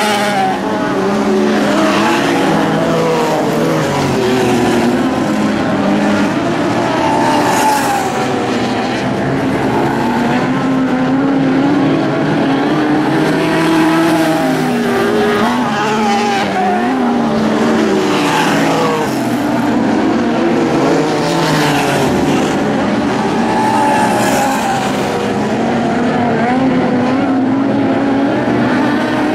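Engines of several Lightning Sprint cars racing together, their notes rising and falling in pitch, overlapping throughout.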